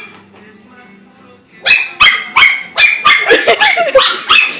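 Small dog barking: a rapid run of about nine sharp, high barks, some dropping in pitch, starting about a second and a half in.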